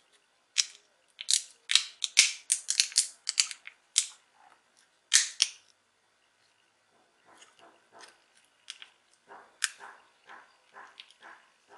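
Quick run of sharp plastic clicks and snaps as the top cover of a Sony SBH50 Bluetooth headset is pressed and fitted onto its body by hand, then softer, fainter ticks of handling from about seven seconds in.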